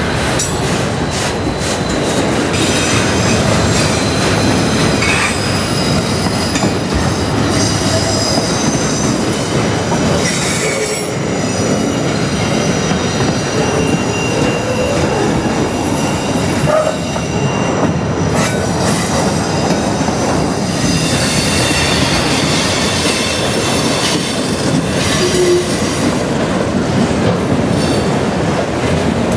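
Freight train of autorack cars rolling past close by: a steady rumble and rattle of steel wheels on the rail, with clicks over the rail joints and high-pitched wheel squeal that comes and goes.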